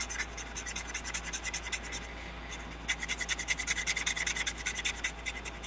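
Sharpie permanent marker scribbling quickly back and forth on paper to colour in a shape: fast scratchy strokes, about eight a second. The strokes are lighter in the first half and harder from about three seconds in until shortly before the end.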